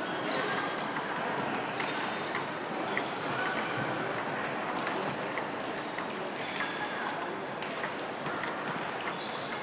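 Table tennis ball in a practice rally, clicking back and forth off the bats and table with a sharp tick about every half second, over steady background noise.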